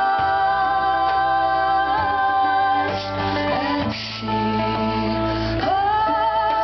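A folk band playing live: women's voices holding long notes in harmony over mandolin, keyboard and hand drum, moving to new held notes about four seconds in and, with a slide upward, near the end.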